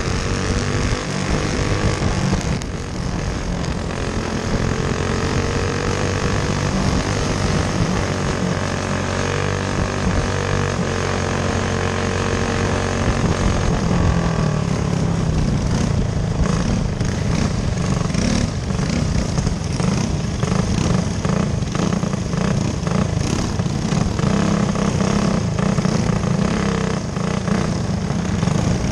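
Dirt-track racing go-kart engine at race speed, heard from on board, its pitch rising and falling as the kart works through the laps. From about halfway the sound turns rougher and choppier.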